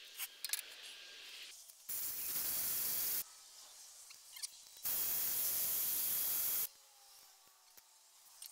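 Cordless drill spinning a sanding drum inside a threaded hole in a cast-iron engine block, scouring out old thread-locker: two steady hissing runs of about a second and a half each, starting and stopping abruptly, with small handling clicks between.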